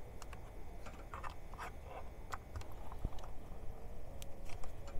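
Scattered light clicks and taps from handling a ring light's power cord and plug-in adapter while plugging it back in, over a low steady hum.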